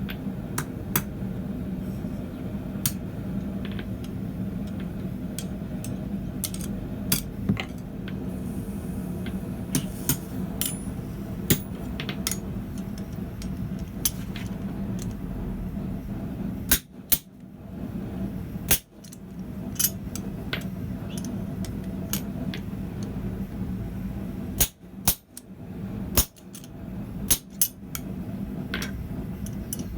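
Blacksmith's hammer and tools on steel: irregular sharp metallic taps and clinks, one every second or two, over a steady low hum that drops out briefly twice.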